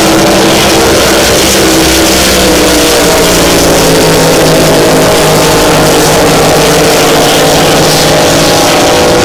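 Supercharged alcohol-fuelled race boats at full throttle, several engines overlapping in a loud, steady drone whose pitch drifts as the boats pass.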